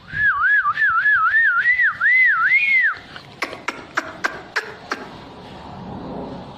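A parrot whistling a warbling note that swings up and down in pitch for about three seconds, followed by a quick run of about six sharp clicks.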